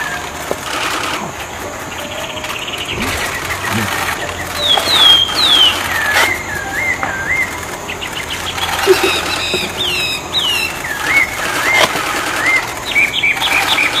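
A songbird singing clear whistled phrases with pauses between them: quick falling slurred notes and looping whistles, then a fast run of short repeated notes near the end.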